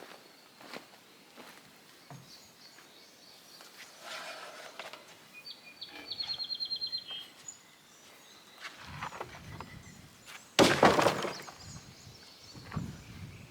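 A loud wooden crash and clatter about two-thirds of the way in, like slab-wood offcuts being dropped, with quieter knocks and footsteps before and after. A bird gives a short high trill near the middle.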